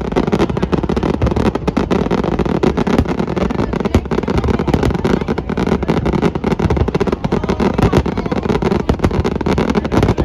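Fireworks going off in quick, unbroken succession: a dense run of bangs and crackles over a steady low rumble.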